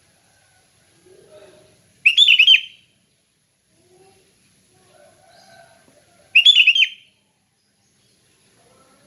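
Sooty-headed bulbul (kutilang) singing in a relaxed 'ngeplong' style: two short, clear phrases about four seconds apart, with faint low sounds between them.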